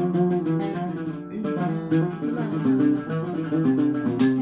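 Oud played solo: a quick run of plucked melody notes, with sharp strummed strokes about two seconds in and again near the end.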